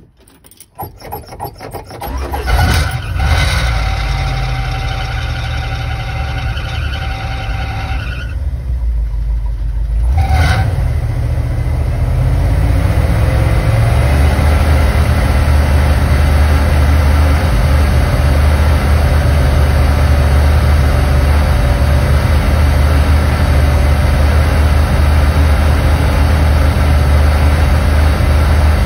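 1972 Dodge van engine cold-started: the starter cranks for about two seconds before the engine catches, then it runs with a squeal over it for several seconds, the owner's excuse being low "alternator fluid". It then settles into a steady idle that gets louder about fourteen seconds in.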